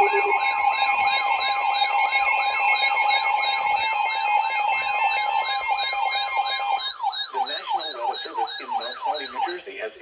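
Several weather alert radios and EAS receivers sounding their alarms at once for a severe thunderstorm warning. Fast warbling, siren-like tones play over a steady two-tone attention signal; the steady tone stops about seven seconds in, leaving only the warbles.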